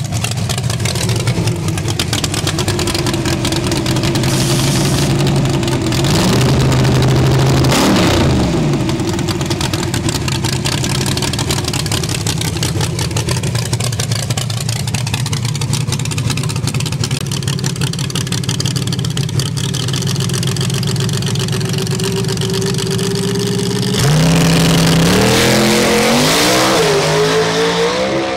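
Drag-race pickup's engine running at low speed in the staging lanes, with a brief rev about six seconds in. About 24 seconds in it launches at full throttle, louder, its pitch climbing with dips as it shifts gears.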